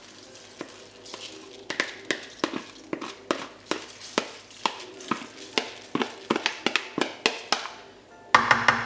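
Spoon scraping and knocking rinsed rice out of a plastic bowl, a quick series of sharp taps, two or three a second, with a louder noisy stretch near the end. Faint background music under it.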